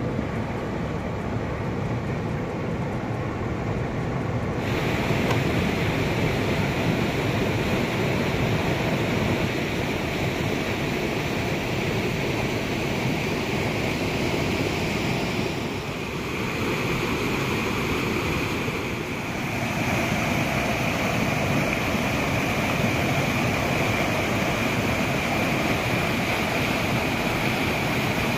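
Turbulent river water rushing steadily over a low weir, a continuous noise of churning whitewater that grows a little louder about five seconds in.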